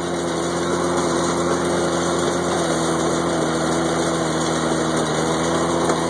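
International Harvester 656 tractor engine running steadily under load, driving a New Holland 315 square baler as it picks up hay.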